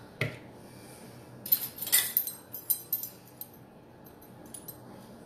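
Kitchen utensils and dishes clinking and knocking: a knock at the start, a quick run of clinks and rattles a second and a half in, then a few light taps near the end.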